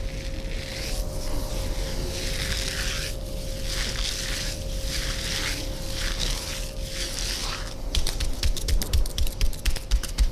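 Barber's hands massaging, rubbing over skin or hair in swishing strokes about once a second. About eight seconds in, they switch to rapid percussive tapping, several quick hits a second and louder than the rubbing.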